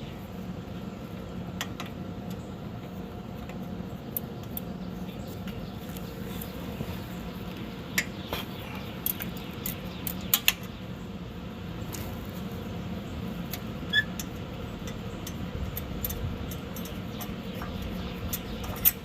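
Scattered metallic clicks and clinks of hand tools and bolts as the brackets on a truck's rear axle are unbolted, over a steady low hum. The sharpest clinks come a few at a time, about a third of the way in, midway, and at the end.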